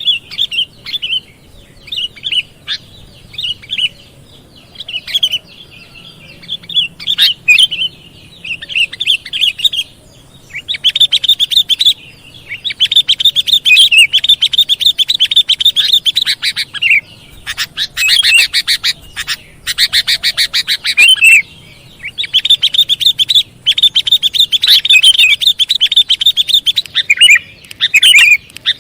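Sooty-headed bulbul (kutilang) calling: scattered short chirps for about the first ten seconds, then long runs of rapid chattering calls.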